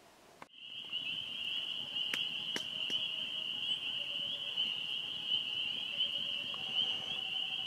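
A calling insect's continuous high-pitched trill that starts suddenly about half a second in and holds steady, with a few faint short whistles underneath.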